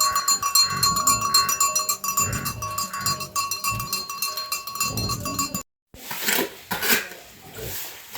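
Animal bells jingling steadily, with low animal calls, cutting off abruptly about five and a half seconds in. A few sharp knocks follow.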